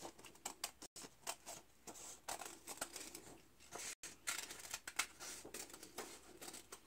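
Scissors cutting around a circle in black construction paper: a string of short, irregular snips.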